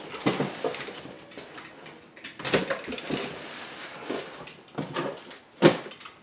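A utility knife slitting the packing tape on a heavy cardboard box, and the box being shifted and turned on a wooden table: scraping with repeated knocks and clicks, and one sharp knock near the end.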